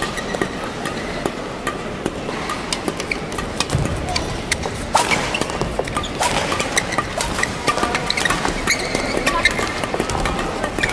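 Badminton rally in a large hall: sharp clicks of rackets striking the shuttlecock, over and over, with short squeaks and steps of players' shoes on the court.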